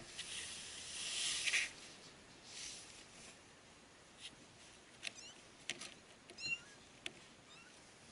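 A wary mother cat close to the opening gives a short breathy hiss about a second in. After that come a few light clicks and faint, high, short squeaks from the kittens.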